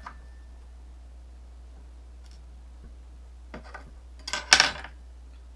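Small clicks and a brief clatter of hard plastic parts being handled, starting about three and a half seconds in and loudest near the end, over a steady low hum.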